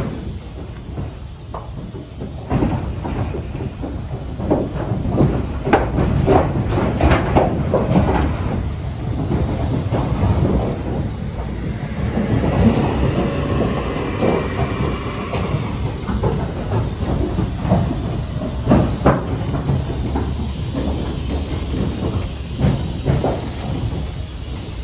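Repeated clanks and knocks over a steady low rumble, with a short higher-pitched squeal about halfway through.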